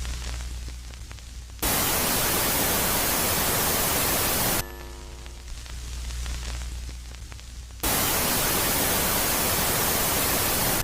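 Space-style ambient audio track alternating between a quieter phase with a low hum and a loud, static-like hiss that switches on abruptly. The hiss comes twice, for about three seconds each time, beginning a little over a second in and again near the end.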